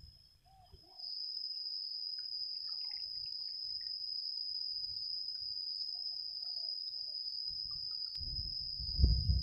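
A steady, high-pitched insect trill, louder from about a second in, with scattered short bird chirps. A low rumbling noise comes in near the end.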